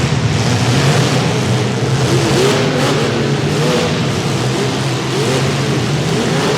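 Several compact demolition derby cars' engines running hard under a steady low drone, revving up and down over and over, several at once.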